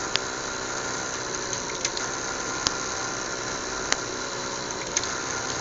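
Small fischertechnik electric motors with propellers running steadily under Arduino PWM control, a constant hum and whir. A few sharp clicks sound over it, about a second apart near the start and end.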